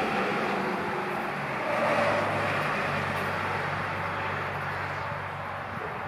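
A motor engine droning steadily, swelling about two seconds in and then easing off slightly.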